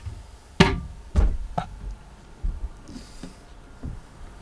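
Knocks and thumps from handling things and moving about in a boat's small fiberglass head and cabin. A sharp knock comes just over half a second in, then several duller thumps and lighter knocks.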